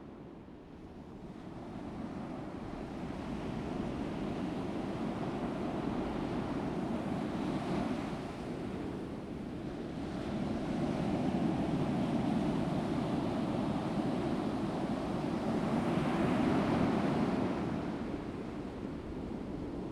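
Ocean waves washing in, a rushing noise that swells and ebbs slowly, building about eight seconds in and again from about ten seconds, loudest near the end.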